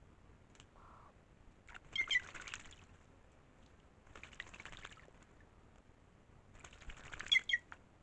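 A white-naped jay bathing in a shallow pool, beating its wings in the water: three short bouts of splashing and wing flutter, about two and a half seconds apart.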